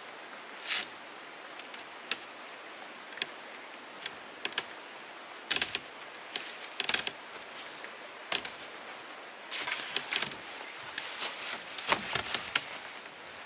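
Metal tent poles and plastic pole clips clicking and rattling as a wet tent is taken down, a sharp click every second or so, turning into denser rustling and crinkling of wet tent fabric near the end. A steady background hiss runs underneath.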